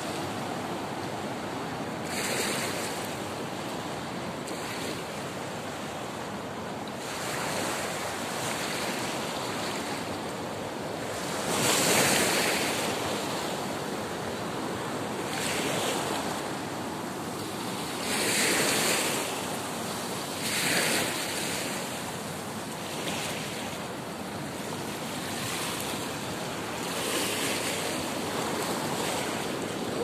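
Ocean surf over a shallow reef: a steady rush of waves that swells every few seconds, loudest about twelve seconds in, with wind on the microphone.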